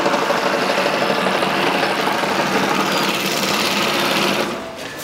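Mattress tape-edge machine's Typical-brand industrial sewing head running steadily, stitching the binding tape around a mattress edge. It dies down briefly near the end.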